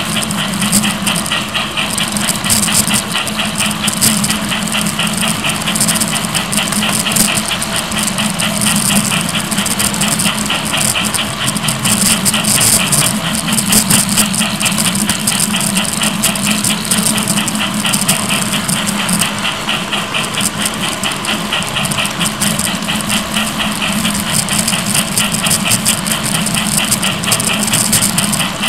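LGB 0-4-0 Porter G-scale model locomotive running along garden railway track, heard close up: a steady motor-and-gear hum with a fast, even clicking of wheels on the rails.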